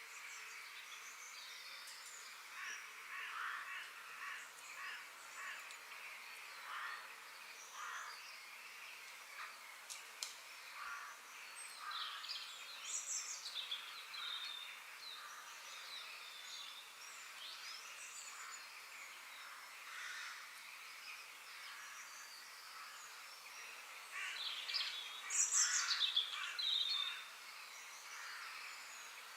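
Forest birds calling and chirping, many short, quick calls overlapping over a steady soft hiss; a cluster of louder, higher calls comes near the end.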